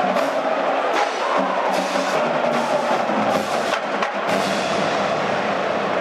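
Marching band playing: sustained brass chords with scattered drum and percussion strikes.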